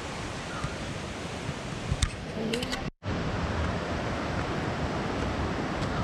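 Steady rush of flowing water, an even hiss-like roar that cuts out for an instant about halfway through, with a few faint clicks and snatches of voices just before the break.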